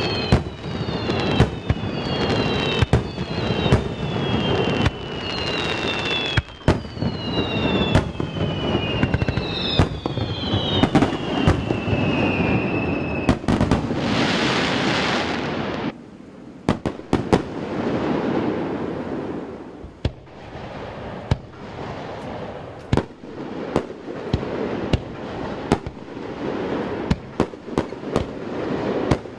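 Starmine fireworks barrage: rapid booms of bursting shells over constant crackling. Through the first half, repeated whistles fall in pitch one after another. About 14 s in, a burst of dense crackling hiss comes before the booms go on.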